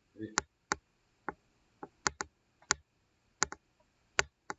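Computer keyboard keys clicking in short, irregular taps, about a dozen sharp clicks at an unhurried pace.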